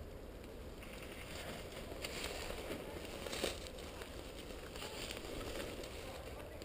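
Crunching and rustling of a person moving over the ground, with one sharper click about three and a half seconds in, over a steady low rumble.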